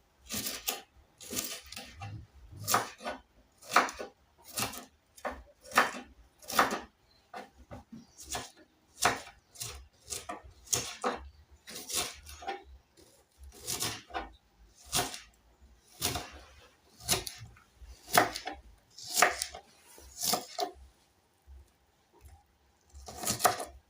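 Knife slicing onions on a chopping board: a steady run of irregular cutting knocks, a little over one a second, with a short pause near the end.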